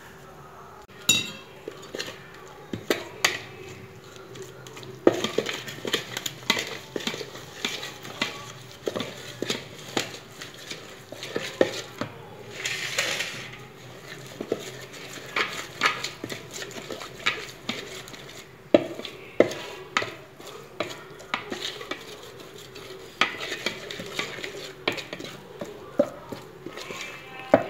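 A metal spoon stirring a thick cornflour-and-spice paste in a steel bowl, with frequent irregular clinks and scrapes of spoon against the bowl.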